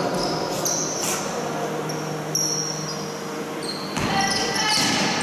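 Basketball game on a hardwood court: sneakers squeak sharply several times, the ball bounces a few times, and a murmur echoes through the hall.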